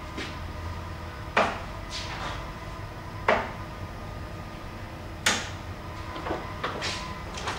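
Three darts striking a dartboard one after another, about two seconds apart, each a short sharp thud, followed by a few lighter knocks near the end.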